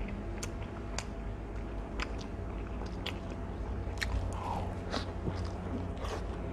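A person biting and chewing a slice of pizza close to the microphone, with scattered sharp, crisp clicks from the crust.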